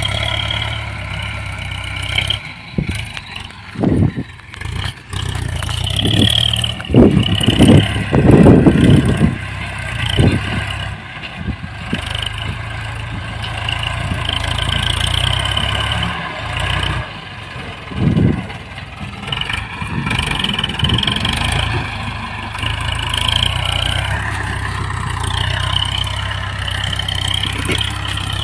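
Ford 6610 tractor's four-cylinder diesel engine running under load while it pushes soil with a front blade. A run of loud, irregular low rumbles stands out about seven to nine seconds in.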